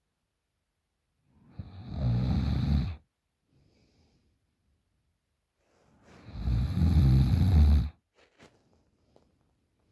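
A woman snoring in her sleep: two long, loud snores about four seconds apart, each lasting around two seconds.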